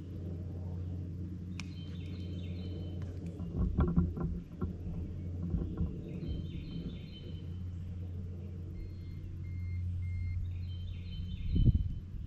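Bass boat's bow-mounted electric trolling motor humming steadily. A few knocks and bumps on the boat come about four seconds in and again near the end, with faint high chirping behind.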